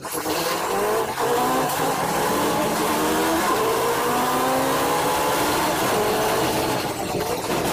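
City bus's engine and drivetrain accelerating, heard from inside the cabin near the front: a whine that climbs in pitch and drops back at gear changes, over road noise.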